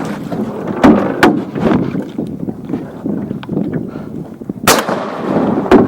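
Rowboat under way, with hard knocks and clatter against the hull over wind noise, and one sharp crack a little before the end.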